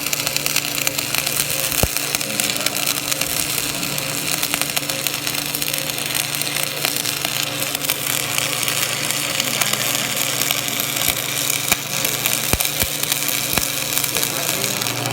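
Stick welding arc burning a 6013 rod at 90 amps: a steady crackling sizzle with scattered sharp pops, stopping abruptly at the very end as the arc is broken. The welding machine hums steadily underneath.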